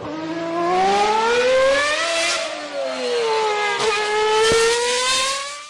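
A car engine revving: its pitch climbs, eases off, then climbs again, with a sharp click about four and a half seconds in. The sound ends abruptly.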